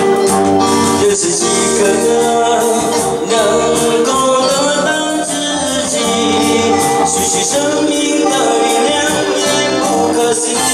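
Male singer singing through a microphone with a live band of electric guitars and a Roland keyboard, playing a song with long held notes.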